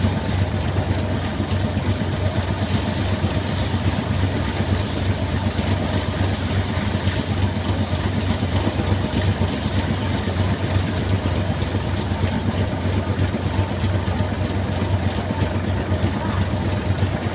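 Sonalika tractor engine running steadily, driving a thresher that is threshing chickpea plants as they are fed in: a continuous, unchanging machine drone with a strong low hum.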